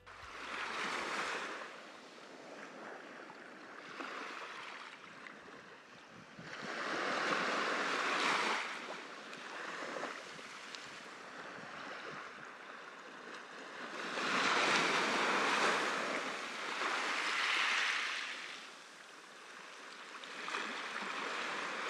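Small waves breaking and washing up a beach, each wash swelling and fading over a couple of seconds, several times over.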